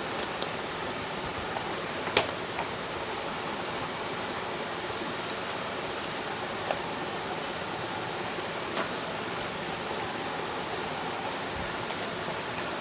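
Steady hiss with a few sharp clicks or taps, the loudest about two seconds in.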